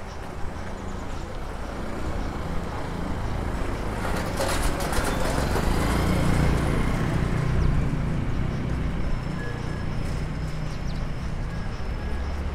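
Road traffic noise with engines running, growing louder through the middle as a vehicle comes close and then easing off.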